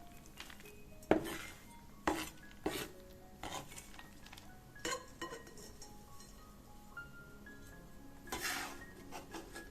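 Kitchen utensils knocking and clinking against a bowl or dish, several irregular strikes with the sharpest about a second in, over soft background music.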